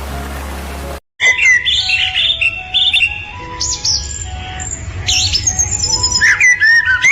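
Several birds chirping and calling at once in quick rising and falling whistles, over a low steady rumble. The calls start abruptly about a second in, after a brief moment of silence; before that, background music plays.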